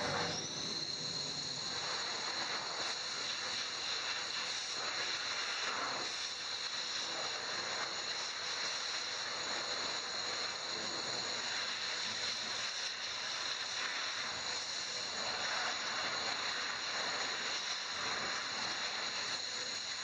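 Hose-type pet grooming dryer blowing a steady rush of air with a constant high-pitched whine, drying a long-haired cat's coat.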